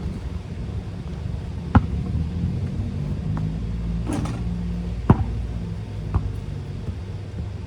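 A basketball bouncing on outdoor pavement: single sharp thuds about two, five and six seconds in, and a brief clatter about four seconds in, over a low rumble that swells in the middle.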